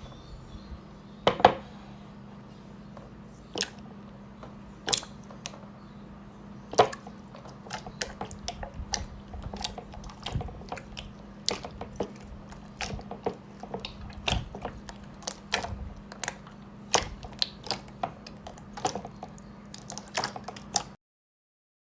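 Hands squeezing and poking slime, giving irregular sharp clicks and sticky pops over a low steady hum; it cuts off suddenly near the end.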